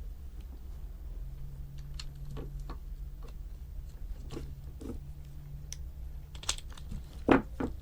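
Small plastic kit parts clicking and knocking as they are handled and pushed together, with the sharpest knock near the end, over a low steady hum.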